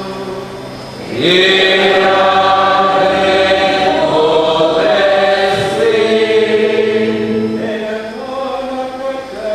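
Liturgical chant sung by several voices at a Catholic mass, with long held notes; the singing swells in about a second in and eases off near the end.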